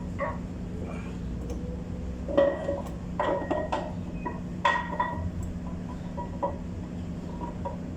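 Metal-on-metal clinks and taps with a short ringing tone as the camshaft is worked out of a truck diesel engine, the sharpest strikes about two and a half and five seconds in, over a steady low hum.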